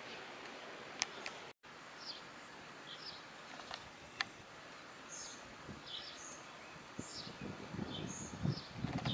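A small bird chirping over and over, short high calls about twice a second, over a steady outdoor hiss. A couple of sharp clicks come about one and four seconds in, and low rumbling noise on the microphone builds near the end.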